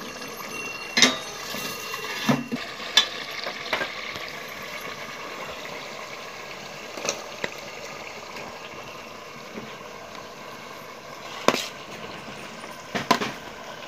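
Stainless steel utensils clinking: a ladle and a steel plate knocking against a steel cooking pot as raw chicken pieces are put into the hot oil. A handful of sharp metallic clinks at irregular intervals, loudest about a second in and again about eleven seconds in, over a steady low hiss.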